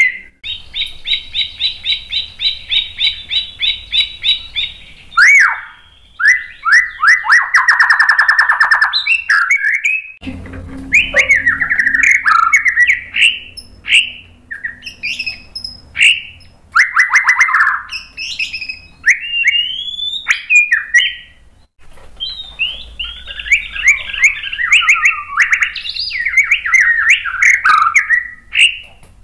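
White-rumped shama (murai batu) singing a loud, varied song. It opens with a fast run of repeated notes, then a lower rapid rattle, then a long string of changing whistled phrases broken by short pauses.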